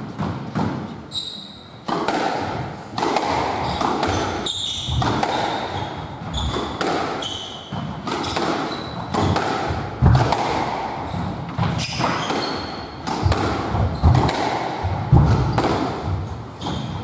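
Squash rally: the ball cracks off rackets and the court walls again and again, with court shoes squeaking on the wooden floor between shots.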